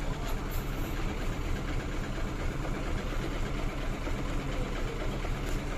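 Truck diesel engine idling, a steady low rumble.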